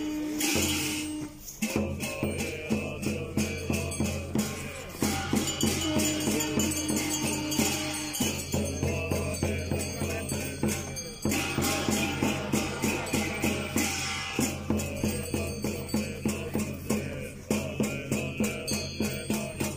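Buddhist temple ritual music: drums and cymbals struck in a steady beat, about three strokes a second, over a sustained low drone, with short breaks every few seconds.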